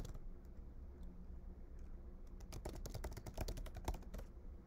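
Typing on a computer keyboard: a few keystrokes right at the start, then a quick run of keystrokes from about two and a half to four seconds in.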